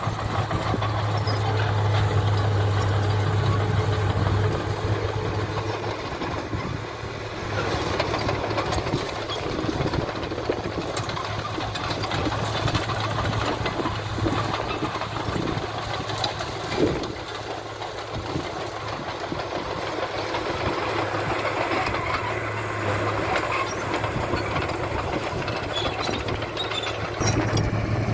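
Diesel engine of heavy earthmoving machinery running steadily with a low hum and mechanical rattle, with one sharp knock about seventeen seconds in.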